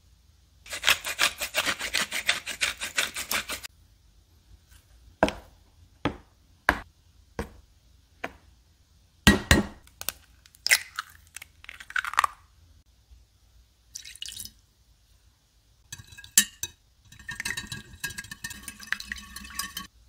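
Food prep in a glass dish: about three seconds of rapid stirring of a dry flour mix, then a string of separate knocks and taps on glass, the sharpest about nine seconds in. Near the end a metal whisk beats eggs against the glass for about three seconds, with a light ringing.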